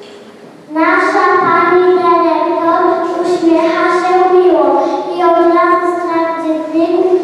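Young children singing a song, starting about a second in after a short pause, in long held notes.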